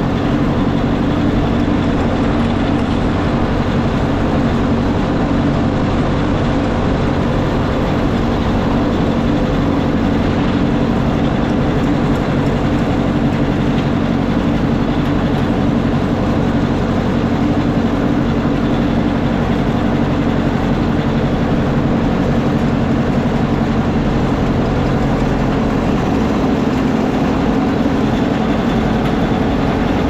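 Farm tractor engine running steadily at a constant pace while towing a hay rake through the windrows.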